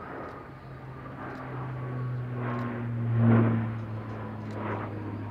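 The Alenia C-27J Spartan's twin Rolls-Royce AE 2100 turboprops and propellers drone as the transport pulls up into a steep climb. The drone swells to its loudest about three seconds in, then eases off.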